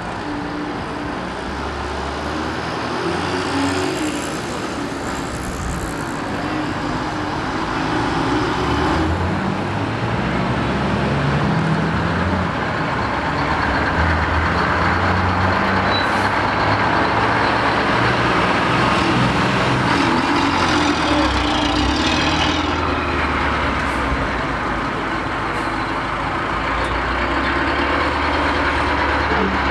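Old trucks' engines running as a converted passenger truck drives past close by. The sound grows louder toward the middle, with brief hisses about four seconds in and again a little past twenty seconds.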